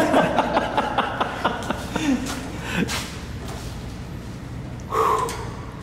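Light clicks and taps of a screwdriver working at a motorcycle's handlebar, with a muffled voice early on. About five seconds in comes a short startled vocal sound, like a gasp.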